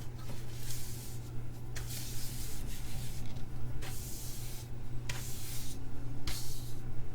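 A brush swept in a series of short strokes over a dirty circuit board, dry bristle rasps, over a steady low hum.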